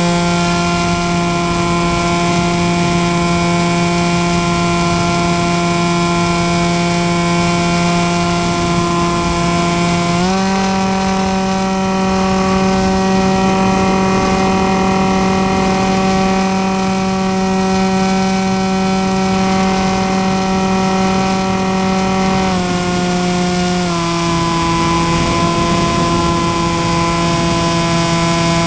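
Electric pusher motor and propeller of a Bixler 2 RC foam plane buzzing steadily in flight, with air rushing past. The pitch steps up about ten seconds in as the throttle is opened, then drops back in two steps some twelve seconds later.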